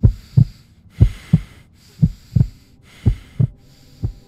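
Heartbeat sound effect: deep lub-dub double thumps about once a second, four pairs and then a single beat near the end, over a faint hiss.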